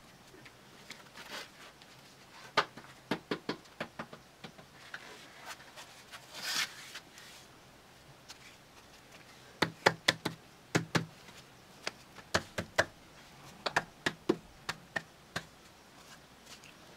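Clusters of sharp taps and knocks from a man working inside a cement-plastered pool basin, with one brief scraping hiss about six and a half seconds in.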